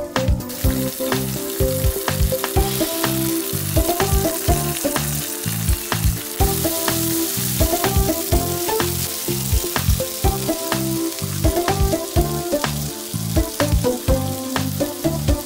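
Thin-sliced pork sizzling as it fries in a nonstick frying pan, with background music with a steady beat.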